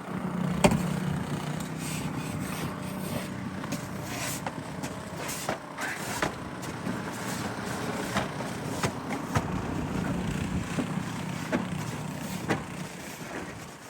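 An engine running steadily with a low hum, and frequent short, sharp scrapes and knocks of snow shovels.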